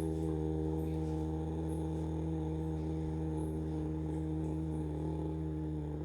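A long, low hum held by a person's voice on one steady pitch, as an exhaled breath in a pranayama breathing exercise.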